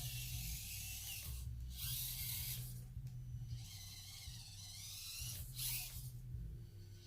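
Axial SCX24 Deadbolt micro crawler's small electric motor and gearbox whining in short stop-start bursts of throttle as it crawls, about three bursts.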